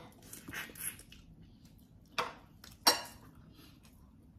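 Eating at a table with the hands: soft rustling of food being handled, and two sharp clinks of dishes, about two seconds in and again a moment later, the second louder with a short ring.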